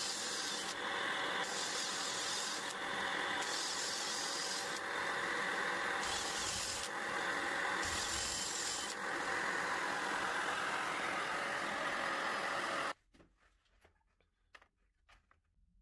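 Power tool cutting into a painted timber door jamb through a hinge template, with a dust-extraction vacuum running. The high cutting noise comes and goes in short passes of about a second over the steady drone. Everything stops suddenly about thirteen seconds in, leaving a few faint clicks.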